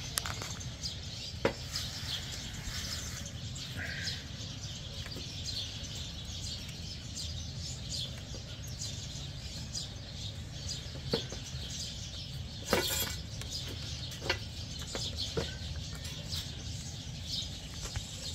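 Birds chirping faintly over a low steady hum, with a few sharp clicks and a brief rattle about 13 seconds in, the loudest moment, as the shifter cable linkage and new bushing are handled.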